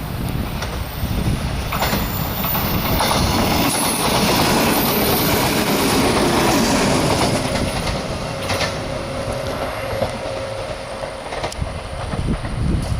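JR 115 series electric multiple unit train passing close by, growing loudest a few seconds in and then easing off, with its wheels clicking over rail joints several times.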